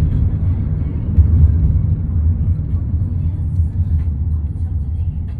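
Low road and engine rumble of a moving car, heard from inside the cabin, swelling briefly a little over a second in.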